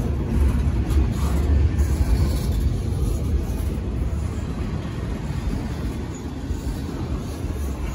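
Empty double-stack intermodal well cars rolling past close by: a steady low rumble of steel wheels on rail, getting gradually a little quieter.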